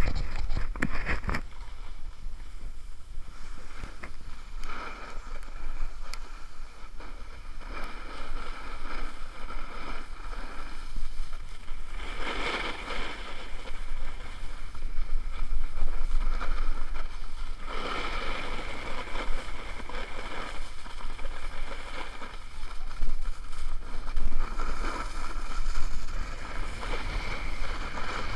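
Snowboard edges scraping and hissing over packed snow while riding downhill, with wind buffeting the microphone as a steady low rumble. The scraping swells louder about twelve and eighteen seconds in, as on harder carved turns.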